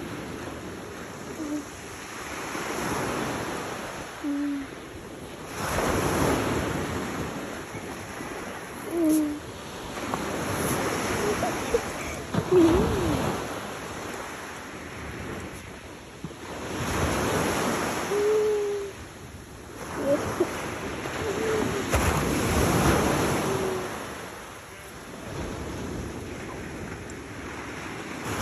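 Surf breaking on a gravel beach, the wash swelling and fading every four to five seconds.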